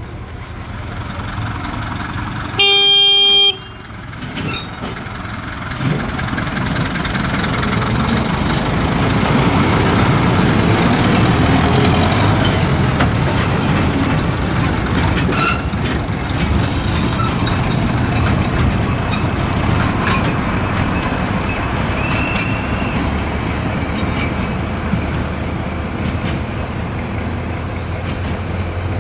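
Small narrow-gauge diesel locomotive sounding its horn once, briefly, about three seconds in. Its engine then runs as it pulls its open coaches past, growing louder and easing off only a little.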